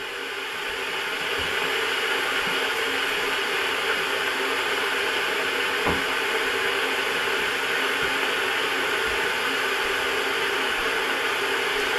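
Russell Hobbs electric kettle heating water: a steady rushing noise that grows louder over the first couple of seconds and then holds level, with a few faint ticks. The water is heating up but has not yet come to the boil.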